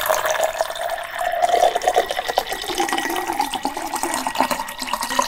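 Water being poured into a drinking glass: a continuous splashing pour that starts just before and stops just after.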